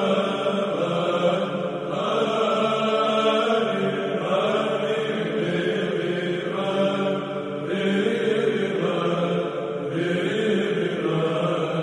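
Orthodox church chant: voices singing slow, long-held notes over a steady low drone, the melody moving to a new note every couple of seconds.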